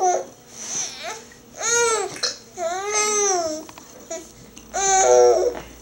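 Baby babbling: a few high-pitched vocal noises that rise and fall in pitch, the longest drawn out for almost a second in the middle.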